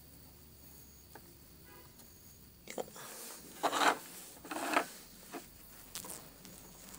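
Several short bursts of rustling and rubbing begin about two and a half seconds in, the loudest around four seconds in. Before that there is only a faint tick.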